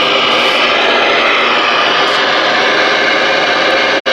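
Steady static hiss from a Galaxy DX-979F CB radio's speaker, receiving open-band noise, cut off sharply for an instant near the end.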